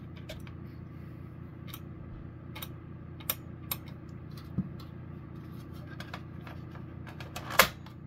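Small plastic clicks and taps from handling an Ademco 1689 smoke alarm as its battery is unplugged and its cover is fitted back onto the base, with a sharper snap near the end.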